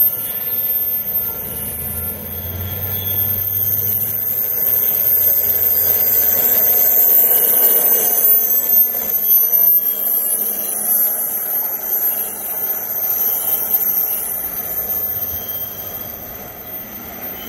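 Freight train wheels squealing on the rails, several steady high-pitched tones over a rumble. The sound grows louder to a peak about halfway through, then fades.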